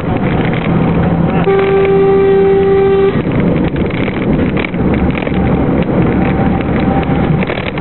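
Truck's diesel engine running, heard from inside the cab. About a second and a half in, a horn sounds one steady note for about a second and a half.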